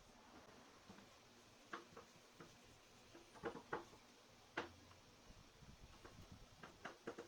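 Faint, scattered light clicks and knocks, about ten in all, several in quick pairs, over a quiet room background.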